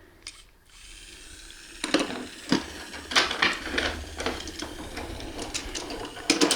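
Battery-powered toy train running on wooden track: its small motor and gears whir steadily while the wheels click and clatter irregularly over the track.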